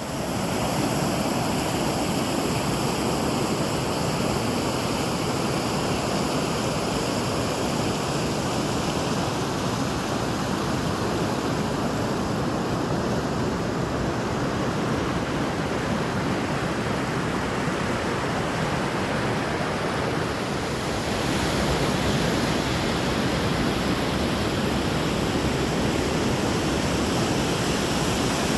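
Steady rushing of moving water, a little louder about three-quarters of the way through.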